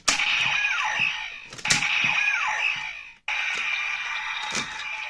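Kamen Rider Ryuki Rider Watch toy playing electronic sound effects through its small speaker. A button click sets off a short effect with a falling glide, the same effect repeats after a second click, and a third click about three seconds in starts a longer steady sound.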